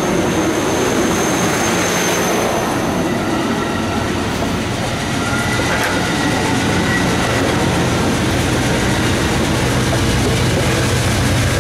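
Amtrak passenger cars rolling past close by as the train pulls out: a steady, loud rumble of steel wheels on rail, with thin high wheel whines, one in the first few seconds and another around the middle.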